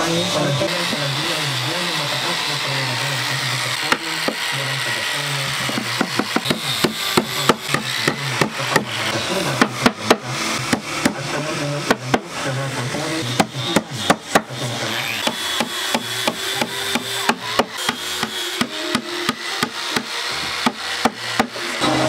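Hammer driving small nails into the glued edges of a plywood speaker box: a string of sharp, irregular knocks, a few a second, starting about six seconds in.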